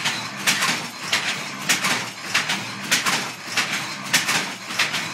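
Michio Suzuki's wooden loom working, its parts clacking in a steady rhythm a little under two clacks a second over a low hum.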